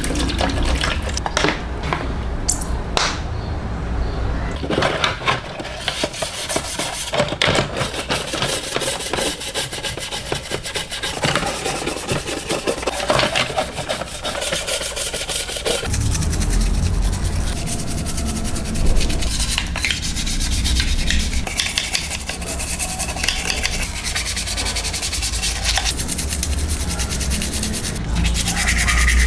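Bristle brush scrubbing wet toy truck parts in a plastic tub, in quick repeated rubbing strokes, with water pouring into the tub at the start.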